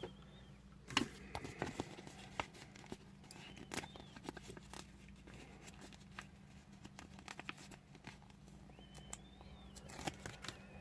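Faint scattered clicks and rustles of hands handling small plastic toy parts and a sticker sheet.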